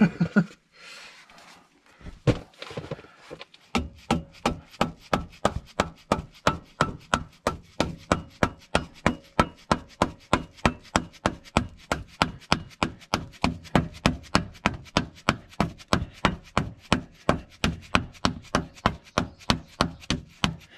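Hammer blows on the steel stabilizer mount plate, driving it into line with the tractor's bolt holes. Two blows come about two seconds in, then a steady run of strikes at about three a second from about four seconds on.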